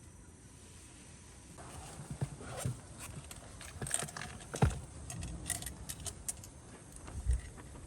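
Small objects being handled: a run of short clicks and clinks, a louder knock about halfway through and a low thump near the end.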